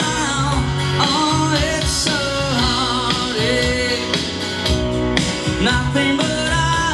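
A rock song with singing and a steady bass line, played from the mixer's built-in player through a compact PA made of car-audio gear: a Stetsom 800 W amplifier driving a subwoofer with a Bomber driver and a line-array box with QVS speakers.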